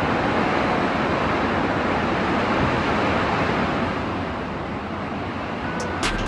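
Steady rushing noise of typhoon wind and water coming through an elevator shaft behind closed steel lift doors, with a few sharp clicks near the end.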